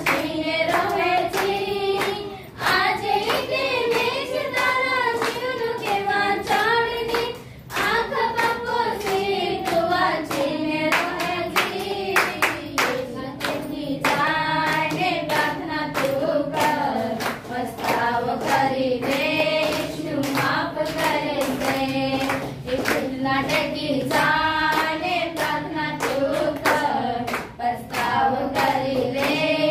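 A small group of women singing a devotional song together, with steady rhythmic hand-clapping keeping the beat.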